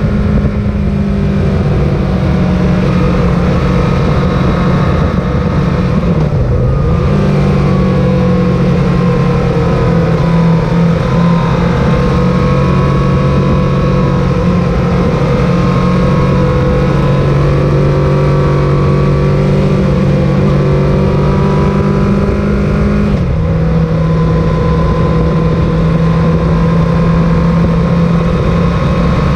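Sport motorcycle engine running at cruising revs, heard over a heavy rush of wind noise. The engine note dips and recovers about six seconds in, and steps down to a lower steady pitch about three-quarters of the way through.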